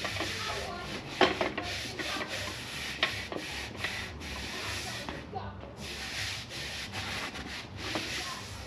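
Sanding by hand, the sandpaper rasping over the surface in repeated strokes with a short pause about five seconds in. A couple of sharp knocks come about one and three seconds in.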